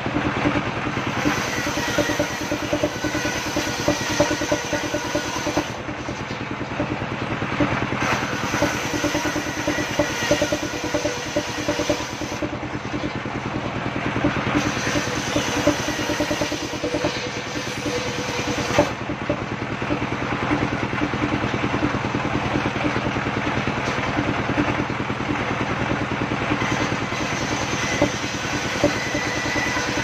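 Engine-driven circular saw of a mobile sawmill running steadily while boards are fed through the blade and ripped into battens. The engine's fast pulse runs underneath, and the saw's note shifts as each cut starts and finishes.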